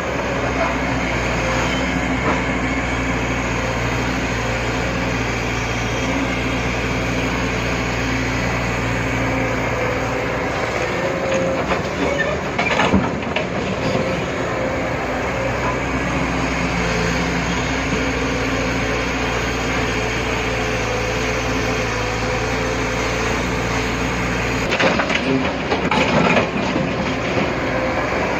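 Heavy diesel earth-moving machinery running steadily, with a couple of short bouts of clanking about halfway through and again near the end.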